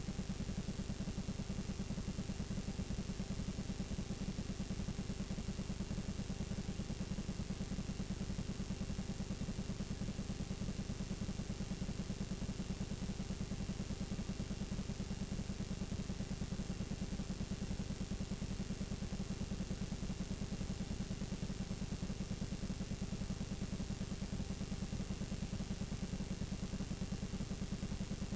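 Steady rough low buzz with hiss and a thin, constant high whine: the playback noise of a blank, unrecorded stretch of videotape.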